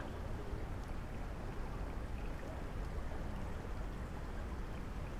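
River water flowing steadily past a stone embankment: an even rushing noise with a low rumble beneath.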